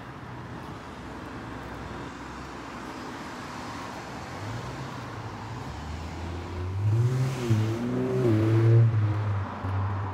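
Street traffic: steady road noise, with a motor vehicle's engine growing louder past the halfway point, its pitch rising and falling as it goes by, loudest a little before the end.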